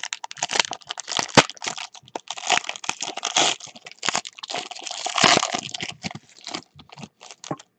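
Foil trading-card pack wrapper crinkling and being torn open by hand: an irregular crackle, with a sharp crack about a second and a half in and a louder stretch about five seconds in.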